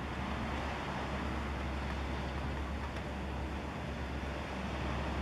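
Steady low rumble with an even hiss: wind and distant engine noise of outdoor ambience, with no distinct events.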